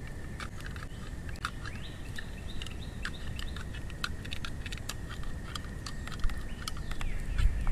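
Small campfire of damp sticks crackling and popping under a mess-kit pan of pasta at the boil, with irregular sharp crackles throughout. Wind rumbles low underneath, and birds give a few short falling chirps about two seconds in and again near the end.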